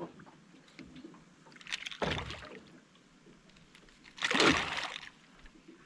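Water splashing in three short bursts, the loudest about four seconds in.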